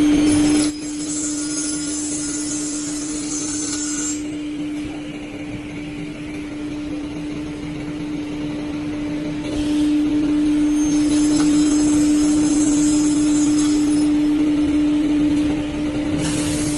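A CNC four-sided door-cutting saw running with a steady motor hum. Stretches of higher hissing noise come about a second in and again about eleven seconds in.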